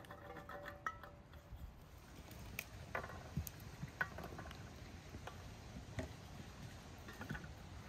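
Pomegranate seeds being picked out of split fruit by hand and dropping onto a plate: scattered light ticks and taps, irregularly spaced, over a faint steady outdoor background.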